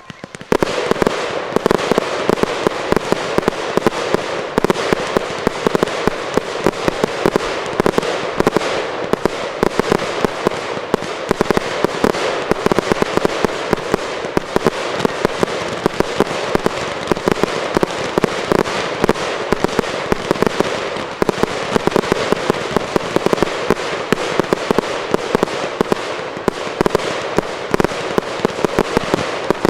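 Fireworks display: a dense, continuous barrage of rapid crackling pops and sharp bangs, starting suddenly about half a second in.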